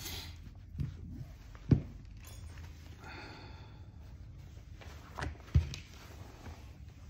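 Hand-stitching leather around a handle: waxed thread drawn through the stitch holes with short rasps, and two sharp knocks about four seconds apart as the handle bumps the workbench.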